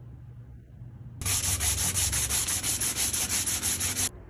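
Sandpaper rubbed by hand along a round wooden dowel, a table leg, in rapid, even back-and-forth strokes. The scratchy sanding starts about a second in and stops abruptly near the end.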